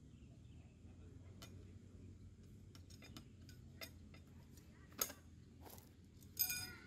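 Light clicks and knocks of folding camp-furniture metal poles being handled in a mesh stuff sack, with a sharp click about five seconds in and a ringing metallic clink near the end.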